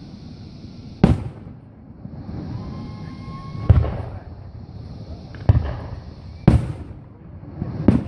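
Aerial fireworks shells bursting: five booms at uneven intervals of one to two seconds, each trailing off in a short rumble.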